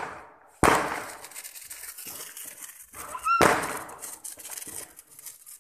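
Two firecracker bangs about three seconds apart, each sharp and loud, then echoing away over a second or so.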